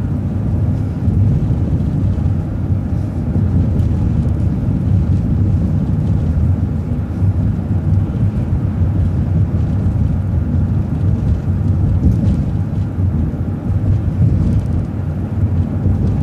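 City transit bus driving: a steady low rumble of engine and road noise, heard from inside the cabin.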